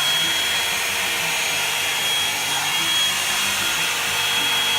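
Revlon One-Step hair dryer and volumizer brush running: a steady rush of blown air with a thin, constant high whine from its motor.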